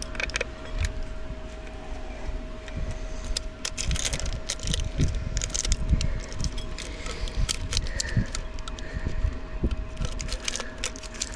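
Hands handling small parts and packing: irregular rustling, clicking and light knocks, over a faint steady hum.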